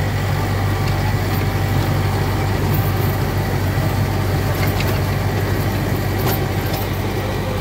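Mahindra 555 DI Power Plus tractor's diesel engine running steadily under load, driving an 8 ft Sonalika rotavator that churns through dry stubble soil. A few faint ticks come through the mechanical noise.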